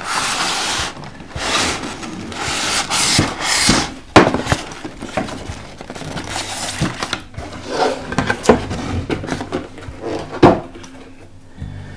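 Cardboard carton being opened and a white foam inner box slid out of it, giving uneven scraping and rubbing, with two sharp knocks, one about four seconds in and one near the end, as the boxes are handled on the table.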